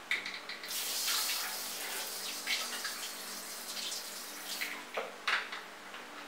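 Handheld bidet sprayer spraying water with a steady hiss for about four seconds, then stopping. A couple of sharp knocks follow about five seconds in.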